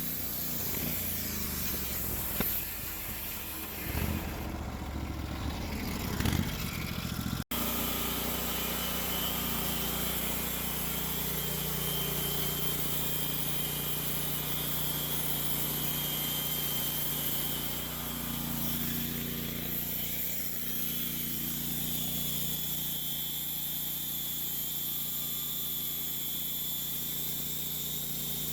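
Sawmill's engine running with a steady drone. The first seven seconds are more uneven, with a few knocks. The sound drops out briefly about seven seconds in, then the engine runs evenly.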